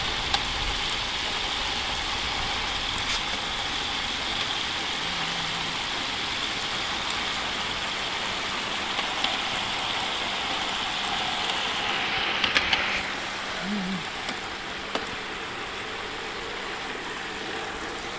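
Whole turkey deep-frying in a pot of hot oil: a steady sizzling hiss of bubbling oil, with a few clicks of metal tongs against the pot about twelve seconds in, after which the sizzle is a little quieter.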